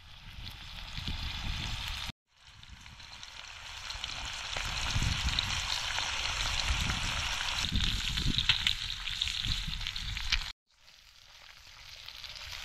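Slices of meat sizzling and spitting in hot fat in a cast iron skillet over a campfire. The sizzle breaks off abruptly twice and builds back up each time.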